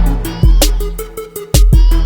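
Background music with a steady beat: hip-hop-style track with heavy bass kicks and sharp drum hits.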